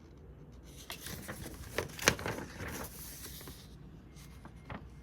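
A paper instruction manual being handled: soft rustling with a few light clicks and taps. The sharpest tap comes about two seconds in.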